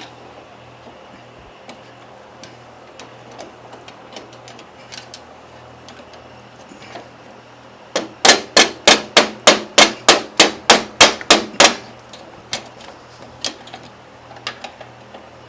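Rapid run of about fourteen hard hammer blows on steel, roughly three or four a second, starting about halfway through, with light taps and clicks of tools before and after. The blows are meant to drive loose a tight pinion gear on a John Deere 120's steering shaft.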